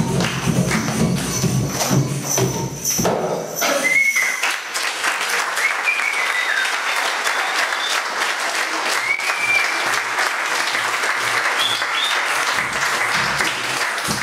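Recorded music for about the first three and a half seconds, then an audience clapping in a hall, with a few short high whistles and soft low thumps about twice a second in the second half.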